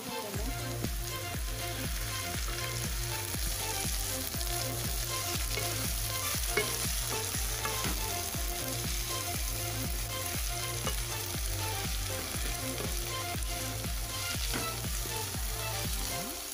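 Chopped cabbage, tomato and capsicum sizzling in oil in a kadhai while a spatula stirs and scrapes them around the pan, with a steady hiss throughout. The vegetables have steamed until soft.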